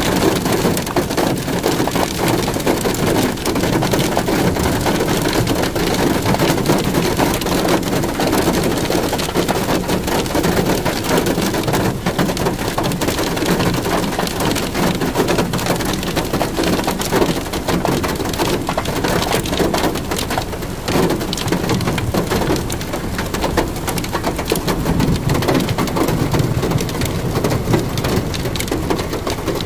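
Heavy rain falling: a dense, steady patter of drops.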